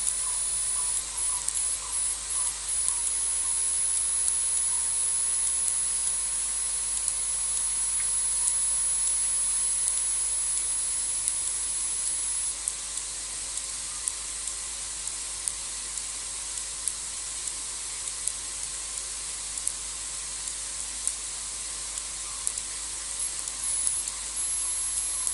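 Night insects: a steady high-pitched trill over a dense hiss, with a short run of quiet repeated chirps in the first few seconds and again near the end.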